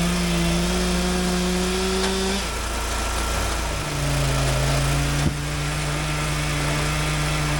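Small gas engine running steadily, most likely driving the hydraulic wood splitter. Its pitch drops a little about two and a half seconds in and holds lower, as when the engine takes load. There is a short knock about five seconds in.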